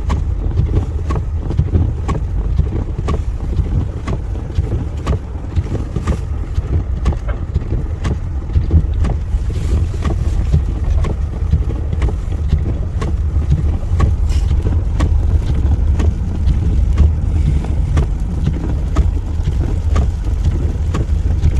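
Steady low road rumble of a car driving slowly over a slushy, snow-covered road, heard from inside the cabin, with many small irregular clicks and ticks scattered throughout.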